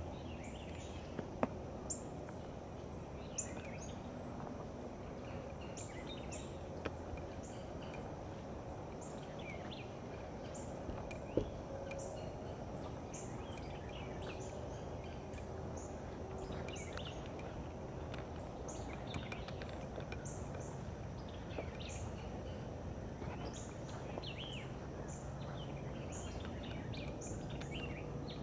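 Small birds chirping in short repeated calls over a steady background hiss, with a few sharp clicks in the first dozen seconds.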